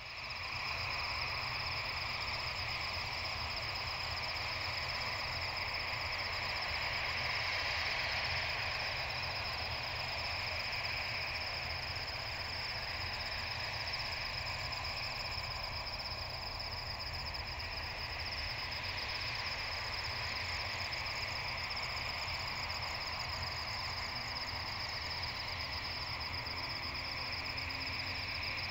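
Night insects, crickets, trilling steadily in a high continuous chorus, over a low steady rumble.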